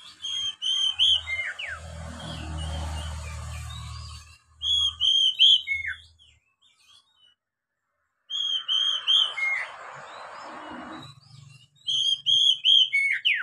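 Oriental magpie-robin (kacer) singing: four bursts of quick, arched whistled notes, with a few falling slurs between them. A broad hiss and a low rumble run under parts of the song.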